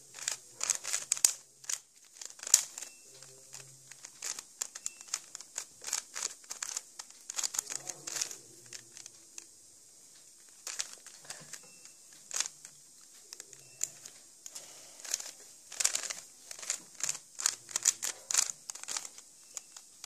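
A stickerless 3x3 plastic puzzle cube turned quickly by hand: rapid clusters of plastic clicks and scrapes as the layers snap round, with short pauses between runs of moves.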